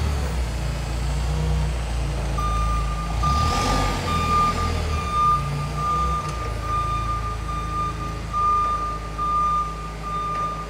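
Crown C5 LP-gas forklift running as it drives, its back-up alarm beeping at a steady rate of nearly two beeps a second from about two and a half seconds in. A brief hiss about three and a half seconds in.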